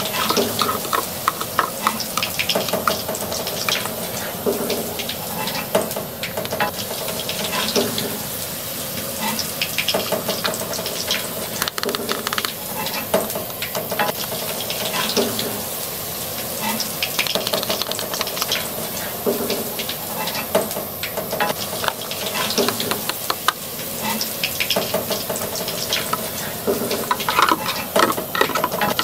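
A steady frying sizzle with many light plastic clicks and scrapes from a toy spatula working a plastic egg in a toy frying pan. The pan is plastic, so the sizzle is played sound rather than real cooking.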